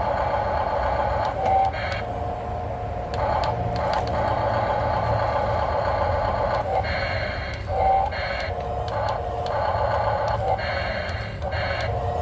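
Radio-controlled model excavator working in sand, its small electric motors and hydraulic pump whining steadily, the pitch and loudness shifting as the boom and bucket are worked. There is a brief higher squeal about a second and a half in, and again near eight seconds.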